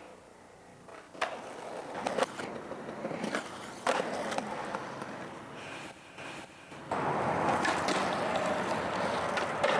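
Skateboard sounds: urethane wheels rolling on pavement, with sharp clacks of the board popping and landing about one, two and four seconds in. From about seven seconds on comes a longer, louder scrape of the trucks grinding along a concrete ledge.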